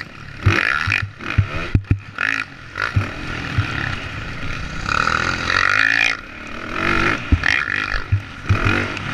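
Dirt bike engine revving hard and backing off again and again, rising and falling in pitch as the rider works the throttle over the jumps and through a turn, with frequent sharp knocks.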